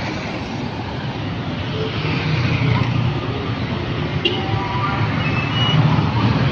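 Busy road traffic: motorcycles and cars passing close by with a steady mix of engine and tyre noise, growing louder in the second half as vehicles pass near. There is a sharp click about four seconds in.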